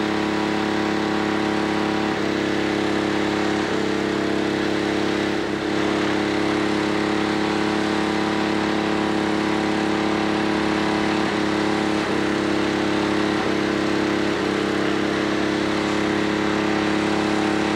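An engine running steadily at idle, a steady hum whose pitch shifts slightly every few seconds.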